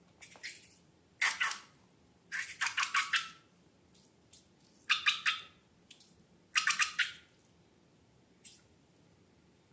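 Slime being squeezed and worked by hand, giving about six short, irregular wet squelches and squeaks.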